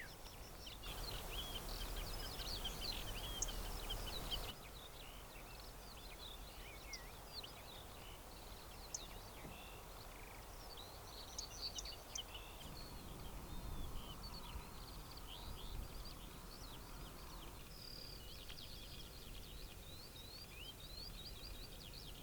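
Many small birds chirping and singing in quick short calls over a faint steady outdoor background. For the first few seconds a louder rushing hiss sits under the calls and then cuts off abruptly.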